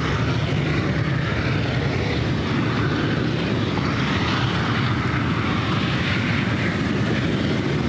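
Steady jet aircraft engine noise, a continuous rumble and hiss with slow swells in the hiss.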